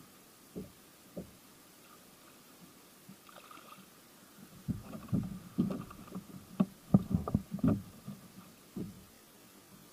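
A run of irregular knocks and thumps against a kayak hull: two soft ones near the start, then a busier cluster a few seconds later, loudest around the middle.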